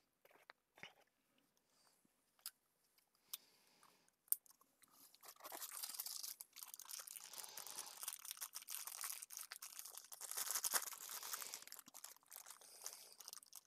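A few light clicks and taps, then from about five seconds in a continuous crinkling of a small plastic parts bag being handled.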